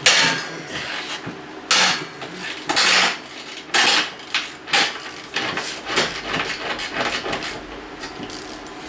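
Metal hand tools being handled: a broken ratchet, socket and cheater pipe knocking and clanking together, about a dozen irregular sharp knocks, the loudest in the first five seconds.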